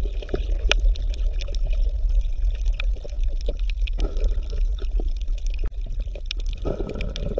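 Underwater water sound: a steady low rumble with scattered faint clicks, swelling about four seconds in and again near the end.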